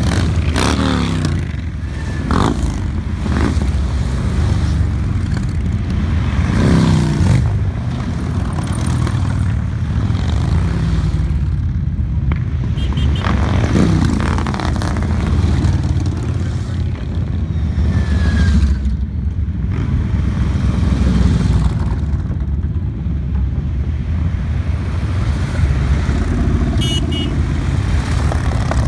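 A steady procession of touring and cruiser motorcycles riding past one after another, engines running in a continuous low rumble. Several times the engine note drops in pitch as a bike goes by.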